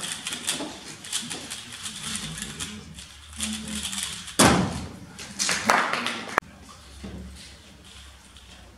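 A 3x3 speedcube being turned at competition speed: a fast, dense run of small plastic clicks. About four and a half seconds in come two louder knocks as the solve ends, then the sound drops to faint scattered clicks.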